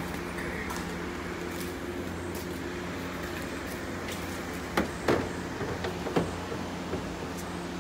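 Plastic wide-body over-fender knocking and tapping against the car's rear quarter panel as it is pressed into place, a few short sharp knocks about five to six seconds in, over a steady low hum.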